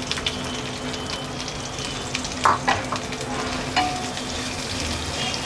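Chopped onions, just added to hot oil and whole spices, sizzling in a nonstick frying pan while a wooden spatula stirs them. A few scrapes and knocks of the spatula against the pan come about halfway through.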